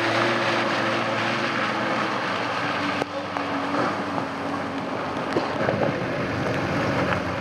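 Car engines running with a steady low hum over a noisy rush of tyres on a muddy, rocky track as vehicles drive slowly past; the sound dips a little about three seconds in.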